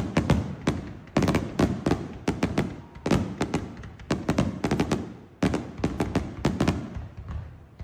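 Fireworks going off in rapid volleys of sharp bangs, each cluster dying away in an echoing tail before the next, with a lull near the end.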